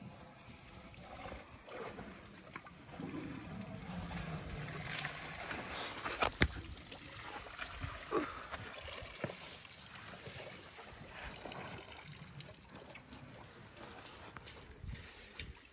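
Elephants drinking at the water's edge: water sloshing, splashing and trickling, with a few sharp knocks, the loudest about six seconds in.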